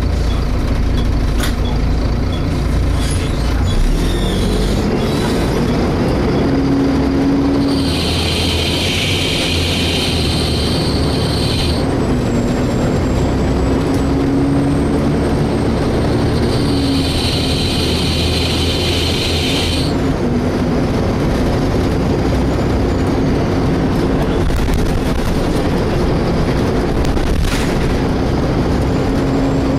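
Volvo B7TL double-decker bus running on the move, its engine and driveline droning and rising and falling in pitch. A high-pitched screeching noise comes in twice, for about four seconds from eight seconds in and for about three seconds from seventeen seconds in.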